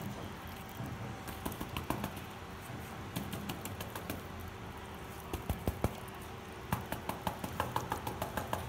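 Brood comb being picked apart by hand over a ceramic plate, with larvae dropping onto the plate: irregular light clicks and taps, bunched in quick runs near the middle and toward the end.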